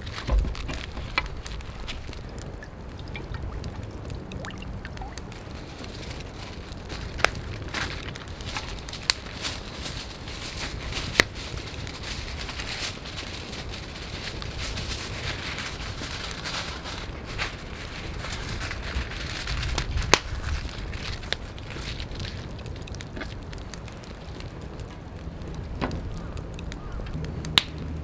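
Wood fire crackling, with scattered sharp pops, over rustling and crinkling of aluminium foil and paper being handled.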